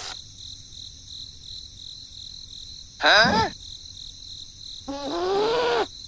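Crickets trilling steadily in a fast pulsing chirp. Over them, a short vocal call falls sharply in pitch about three seconds in, and a longer voiced sound rises and falls near the end.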